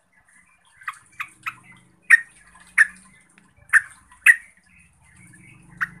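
Yellow-vented bulbul giving short, sharp call notes, about eight of them at uneven intervals, the loudest in the middle.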